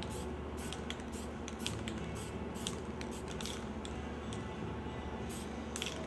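Aerosol spray-paint can hissing in short bursts, about two a second, then a pause and two more bursts near the end. A steady low hum sits underneath.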